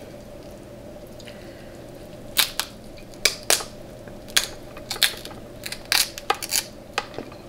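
Close-miked eating of king crab legs: a string of sharp, irregular cracks and clicks, starting about two seconds in, over a faint steady hum.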